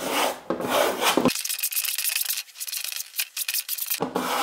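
Plastering trowel scraping and smearing decorative plaster across a thin wooden sample panel in repeated short strokes.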